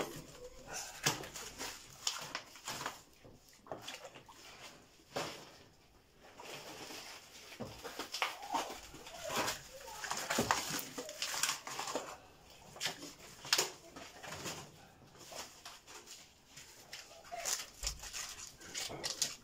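Plastic food packaging crinkling and rustling in the hands, with irregular clicks and knocks as frozen octopus and meat are handled and laid into plastic basins of water.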